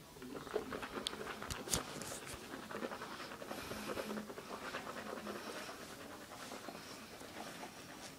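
A person breathing hard through the nose with the mouth held shut around a mouthful of Listerine, plus a few clicks from the phone being handled about a second in.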